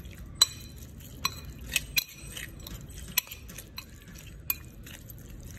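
Metal spoon tossing shredded chicken with minced garlic and sauce in a metal bowl: soft wet mixing, with about six sharp, ringing clinks of the spoon against the bowl, the loudest about half a second in.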